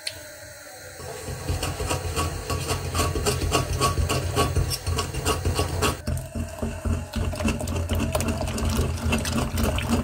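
A wire whisk beating fast against the inside of a stainless steel pot while milk is poured in, mixing flour, sugar and cocoa into a cocoa pudding base. It makes a quick rhythmic clatter and slosh that starts about a second in.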